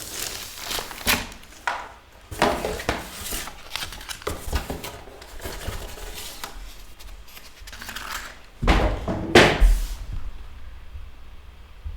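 A diamond painting kit box being opened and its packaging handled: rustling and scattered knocks, with a couple of louder knocks a little before the end, then quieter.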